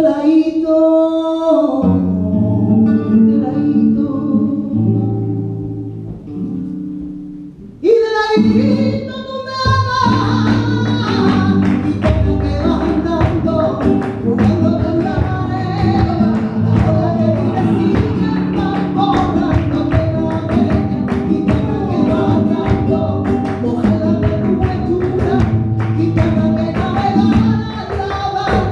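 Live band music with singing. Held chords for the first several seconds, a brief break about eight seconds in, then a fast, steady rhythm of percussion strokes under the voices and instruments.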